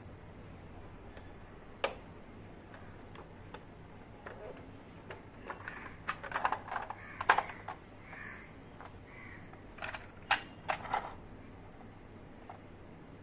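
Small plastic toy kitchen pieces clicking and tapping as they are handled and set down. One click comes about two seconds in, a quick cluster around the middle, and a few more later.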